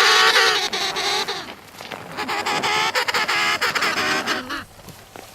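Loud animal calls in two long bouts, the first ending about a second and a half in and the second running from about two to four and a half seconds in.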